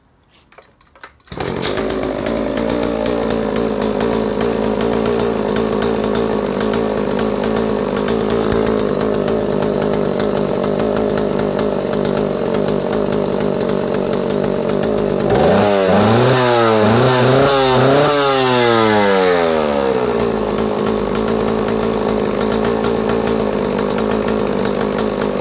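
Vintage JoBu L6 56cc two-stroke chainsaw restarted warm: it fires about a second in and settles into a steady idle. Around the middle it is revved up and down a few times, then drops back to idle.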